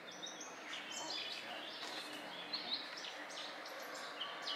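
Small songbirds chirping, many short high calls in quick succession, over a faint steady background of outdoor noise.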